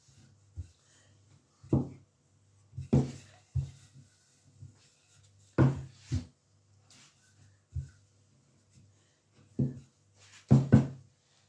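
Wooden rolling pin knocking and rolling on a floured wooden pastry board as dough is rolled out: irregular dull knocks, the loudest a close pair near the end, over a faint low hum.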